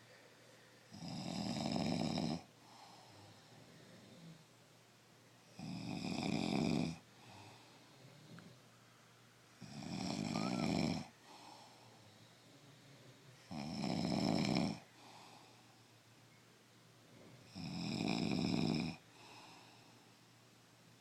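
Loud snoring from a sleeping person, five long snores about four seconds apart, with softer breathing between them.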